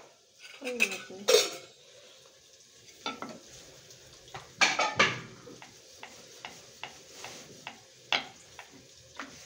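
Cooking pans and utensils clattering on a gas stove, with a few loud knocks in the first half, then a run of light, even taps about three a second. A faint steady hiss runs underneath.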